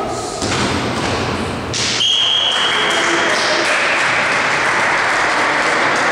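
A volleyball is struck, then a referee's whistle blows one steady blast of about a second and a half, ending the rally. A steady din of cheering follows.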